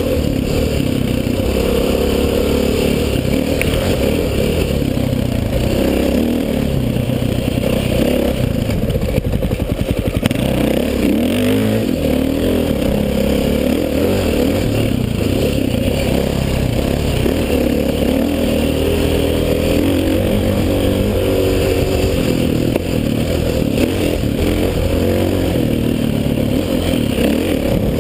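KTM 530 four-stroke single-cylinder dirt bike engine running under load, its pitch rising and falling in steps as the rider works the throttle and gears. A brief clattering about nine to ten seconds in.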